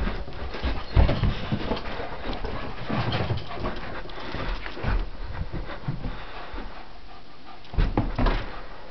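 Poodle panting during rough play, with heavy thumps about a second in and twice near the end.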